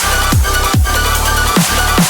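Electronic dance music with a heavy bass beat, each hit sweeping down in pitch, and steady synth tones above.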